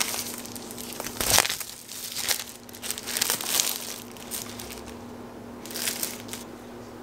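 Clear plastic wrapping crinkling and crackling in irregular bursts as a hard-shell laptop case is pulled out of it, loudest about a second in. A faint steady hum runs underneath.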